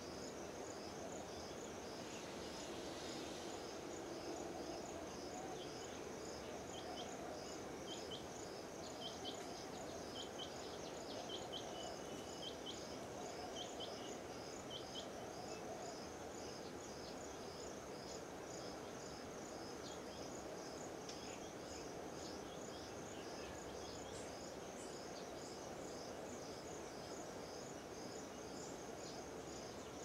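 A steady, evenly pulsing high-pitched insect chirping over a low background hum of outdoor noise. Between about 7 and 15 seconds in, a run of short, sharp bird chirps joins it.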